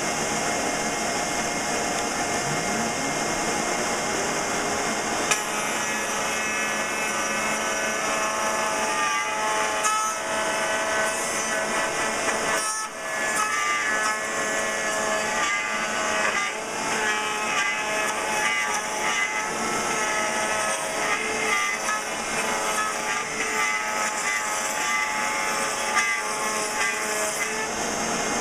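Porter Cable router in a router table spinning up with a rising whine about two and a half seconds in, over a steadily running dust-collection vacuum. From about five seconds in, its 5/8-inch straight bit cuts a groove in a board fed along the fence, a rasping, whining cut that runs on unevenly.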